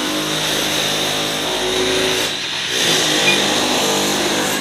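Construction-site machinery running steadily: a loud mechanical drone with several steady tones over a dense hiss.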